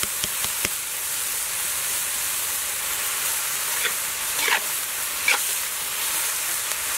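Red ant eggs, sliced mushrooms and chilies sizzling in oil in a metal wok, a steady hiss, while a metal ladle stirs them, scraping and clinking against the wok a few times.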